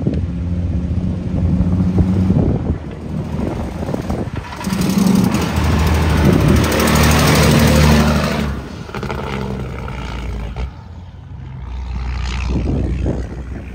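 Heavy truck's diesel engine running steadily, with a loud rush of noise swelling over it for a few seconds in the middle.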